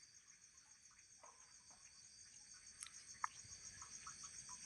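Faint, steady, pulsing high chirr of insects, with a couple of soft clicks about three seconds in.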